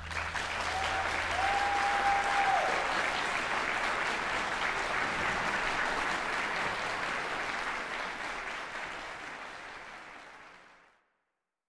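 Audience applause right after a string orchestra's closing chord, with a brief whistle about a second in. The clapping dies away and cuts off near the end.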